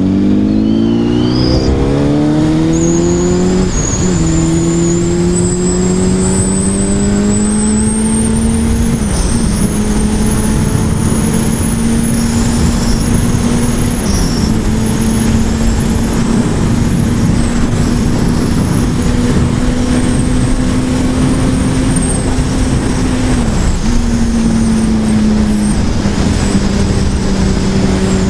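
Honda CBR1000RR's inline-four engine accelerating hard at the start, pitch rising, then dropping at an upshift about four seconds in. It then holds a steady high-speed note, with a few brief dips in pitch, over heavy wind rush.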